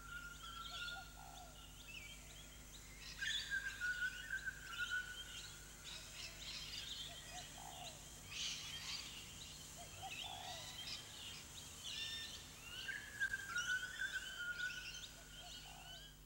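Birdsong: several birds chirping and whistling, with one long whistled note that falls slightly in pitch heard three times.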